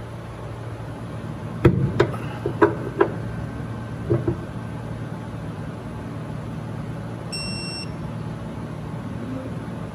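Digital torque wrench being pulled on a landing-gear preload tool: a handful of sharp clicks over the first few seconds, then one short electronic beep from the wrench about seven and a half seconds in as its reading climbs toward the preload range, over a steady low hum.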